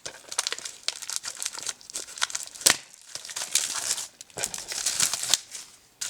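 Plastic wrapping being torn off and crinkled in the hands: irregular crackling and rustling with small clicks, and one sharper, louder crackle about two and a half seconds in.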